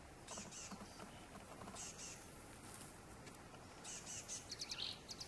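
Birds chirping faintly in short clusters of high notes, with a quicker run of chirps near the end ending in a lower falling call.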